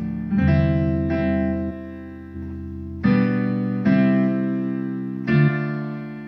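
Korg Karma keyboard playing slow two-handed chords in C major, a new chord struck every second or two, each ringing and slowly fading.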